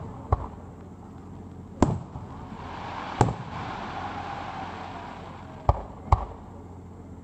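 Aerial fireworks shells bursting overhead: five sharp bangs at uneven intervals, the last two close together near the end, with a hissing wash between the second and fourth bangs.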